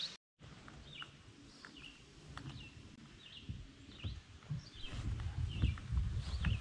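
Birds chirping in short high calls every half second or so. From about halfway in, low rumbling and irregular thuds grow louder as a kayak on a wheeled cart is pulled through grass.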